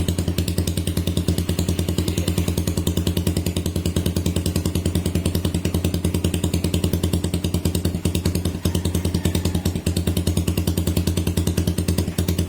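Suzuki Raider 150 single-cylinder four-stroke engine idling just after a cold first start, breathing through a freshly fitted Noo Lamlukka high-mount aftermarket pipe with an open-spec elbow; a steady, evenly pulsing idle at constant pitch with no revving.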